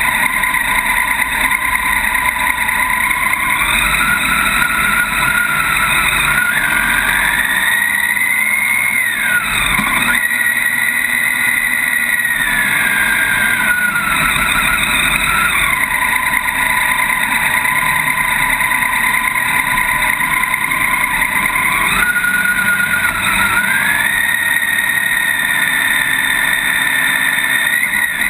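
Motorcycle engine running while riding, its pitch rising and falling several times with throttle and gear changes, with a sharp dip about ten seconds in. Steady wind and road noise sit under it.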